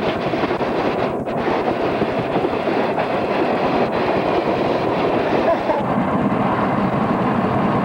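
Freight cars of a Burlington Northern coal train rolling past on the rails: a steady rumble and clatter of steel wheels.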